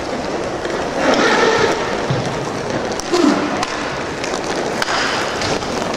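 Inline hockey play: skate wheels rolling and scraping on a plastic tile rink floor, with scattered sharp clacks of sticks and puck and a couple of short shouts from players.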